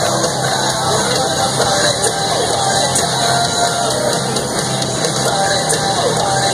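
Grandstand crowd noise with music playing over it, steady throughout.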